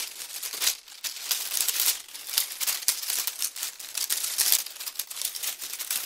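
Small pine sticks scratching and rubbing against each other: a dense, irregular run of dry scratches and crackles, with short pauses about one and two seconds in.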